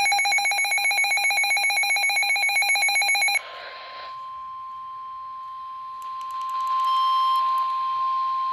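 A weather radio's electronic alert warbling rapidly, cutting off about three seconds in. It is followed by the NOAA Weather Radio warning alarm tone, a steady single pitch near 1050 Hz that grows louder a few seconds later, signalling a warning broadcast.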